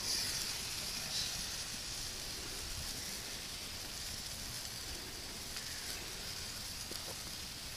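A sparkler burning with a steady hiss that starts suddenly, without the crackle a sparkler usually gives: a weak, 'defunct' sparkler.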